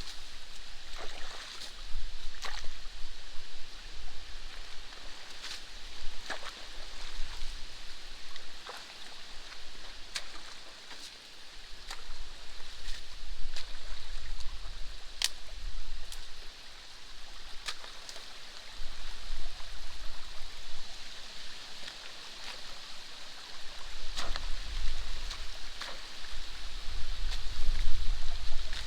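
Water running steadily along a drainage canal whose beaver dam is being torn down, with scattered sharp clicks and knocks and bursts of low rumble, strongest near the end.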